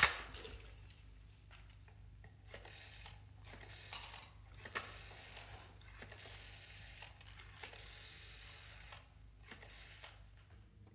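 Rotary telephone being dialled: the dial wound round and clicking back, digit after digit, in a faint series of short mechanical runs.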